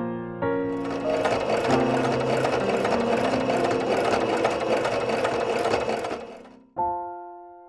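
Electric sewing machine stitching along a folded fabric strap, its needle strokes running fast and even. It starts about a second in and winds down to a stop about six seconds in.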